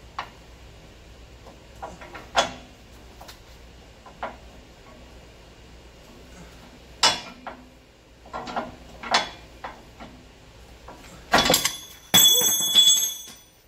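Steel pry bar clinking and knocking against the torsion bar crossmember brace under a Chevrolet Silverado/Sierra truck as the brace is levered up, several sharp metallic knocks a second or more apart. Near the end comes a louder clatter and about a second of metal scraping with a high ringing.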